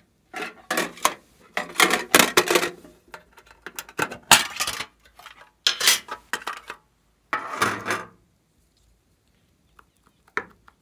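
Hard plastic makeup case being handled and a makeup block pried out of it: several bursts of plastic clicks and rattles over about eight seconds, then a few faint ticks near the end.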